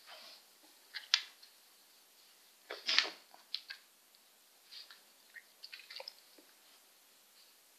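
A dog biting and crunching snow, a string of irregular crisp crunches and clicks, the loudest about three seconds in.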